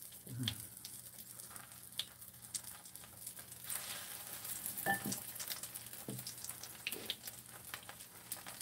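Battered dureup (Japanese angelica tree shoots) frying in oil in a pan, a soft steady sizzle that grows a little louder about four seconds in as another coated shoot goes into the oil. A few light clicks of chopsticks and utensils come through.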